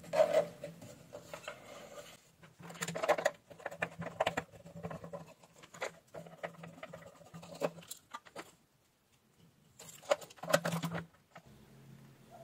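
Hands handling electronics parts on a workbench: irregular clicks, taps and rustles of a small circuit board, ribbon cable and plastic housing, in several clusters with a short quiet gap before a last burst near the end.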